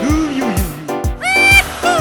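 Upbeat background music with a steady beat about twice a second. About a second in, a bright pitched tone slides up and holds, and a short falling slide follows near the end.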